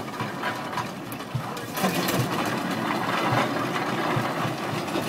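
Steam traction engine running, with a steady beat of about two chuffs a second over a mechanical clatter. It grows louder and fuller about two seconds in.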